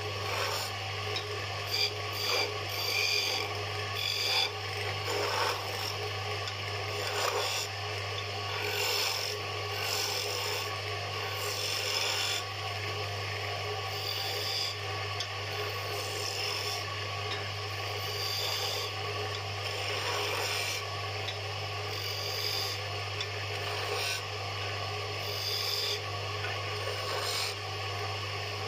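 Turning chisel cutting a spinning wooden spindle on a wood lathe: a rough rasping scrape that swells and fades with each pass, over the lathe's steady low hum.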